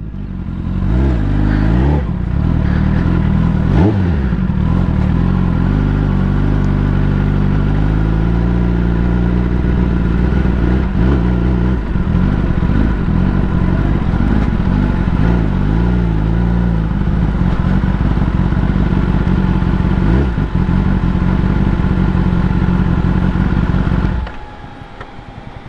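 Kawasaki ZX-10R inline-four sport bike running under way, its engine note rising and falling with the throttle. The sound drops off sharply about a second and a half before the end.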